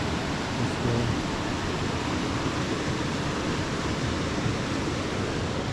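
Steady rush of flowing creek water, an even hiss without breaks.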